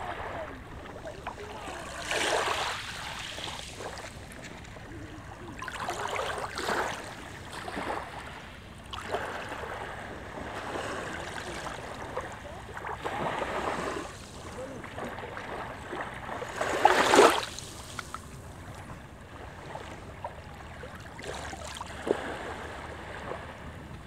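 Small waves of a calm sea washing in at the water's edge over shelly sand, one gentle surge every three to four seconds, the loudest about seventeen seconds in.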